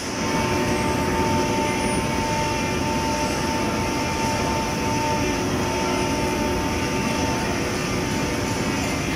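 Roller-type veneer dryer line running: a steady mechanical drone of its fans and roller drives, with a thin steady whine on top.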